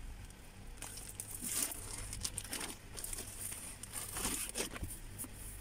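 Thin plastic packaging bag crinkling and rustling in short spells as it is handled and pulled open, with a sharp knock at the very end.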